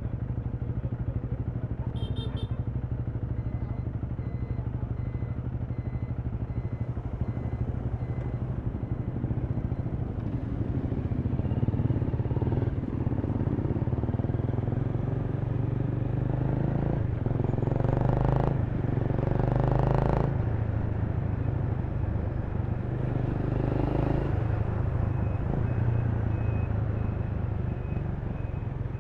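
Honda Rebel 300's single-cylinder engine running steadily under way in city traffic, getting louder about twelve seconds in. Two short loud rushes of noise come about two-thirds of the way through.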